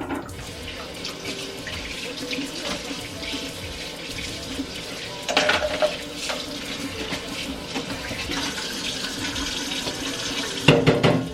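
Kitchen tap running steadily into a sink, with a brief clatter about halfway through and another near the end.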